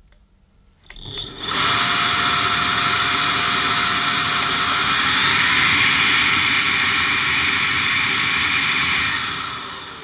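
Bosch Unlimited Serie 6 cordless vacuum's motor switched on with its inlet sealed against a suction gauge, running steadily on the regular setting, stepping up in pitch about halfway through as it goes into turbo, then switched off and winding down near the end.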